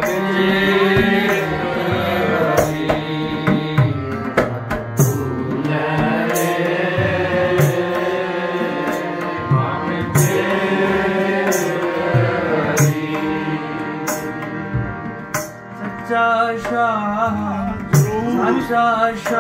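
Harmonium and tabla playing kirtan: the harmonium holds sustained chords and melody while the tabla strikes a steady rhythm. A singing voice with wavering pitch comes in near the end.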